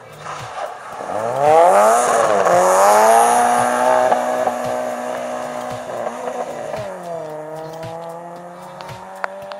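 Small hatchback rally car accelerating hard out of a corner, its engine revving up and holding high revs as it pulls away. About seven seconds in, the engine note drops and levels off at a lower pitch.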